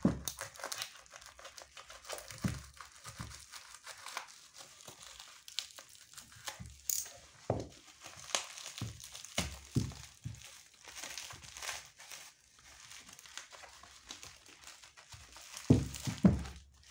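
Plastic bubble wrap and packing tape crinkling and tearing as gloved hands pull the wrapping apart, in irregular crackles, with a couple of louder thumps near the end.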